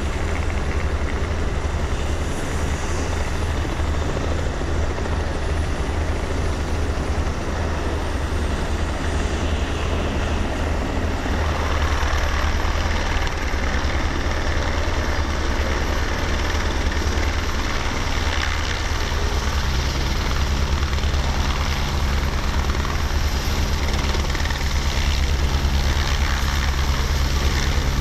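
Helicopter rotor beating fast and steadily over a turbine's hiss, growing brighter about twelve seconds in. In the latter part the source is a twin-turbine Aérospatiale AS355 Ecureuil 2 TwinStar hovering low close by.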